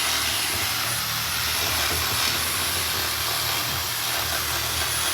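A machine running steadily: a constant low hum under a broad hiss, without a break.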